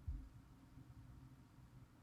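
Near silence: room tone with a faint steady low hum and one soft low thump just after the start.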